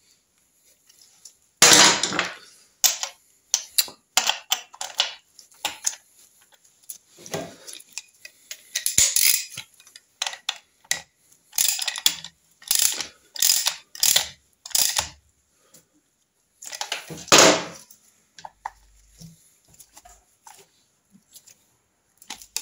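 Hand tools clicking, clinking and rasping against the metal gearbox casing of a Triumph Trident T160 engine as the inner-casing screws are worked with a hex driver. It is a string of short separate strokes, with a run of evenly spaced strokes in the middle and louder clatters about two seconds in and again near the end.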